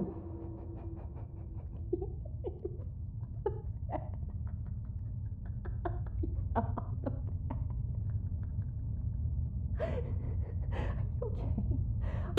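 Low steady rumble under scattered faint clicks and knocks, with a few sharper clicks from about ten seconds in.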